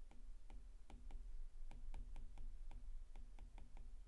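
Pen stylus tapping and clicking against a tablet screen while writing by hand: a quick, uneven run of small clicks, about four a second, over a low steady hum.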